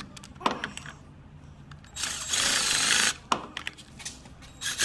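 Power drill running in two short bursts, about a second long two seconds in and briefly near the end, with the bit in an engine sump's stripped drain-plug hole; a few sharp clicks between. This is the first stage of drilling the hole out oversize for a Heli-Coil thread repair.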